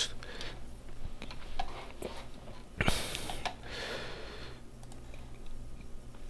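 Quiet room tone with a steady low hum, a sharp breath into the microphone about three seconds in, followed by a softer breath, and a few faint clicks.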